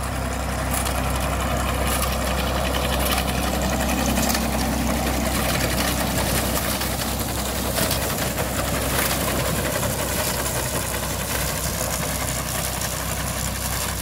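1958 Fordson Dexter's three-cylinder diesel engine running steadily as it tows a McCormick reaper and binder, with the binder's mechanism clattering.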